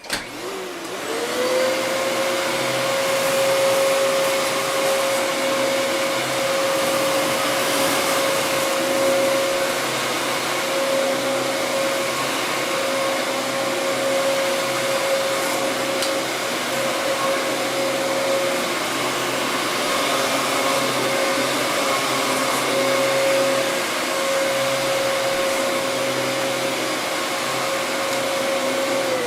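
Upright vacuum cleaner switched on, its motor whine rising to a steady pitch within about a second and then running steadily with the rush of its suction airflow.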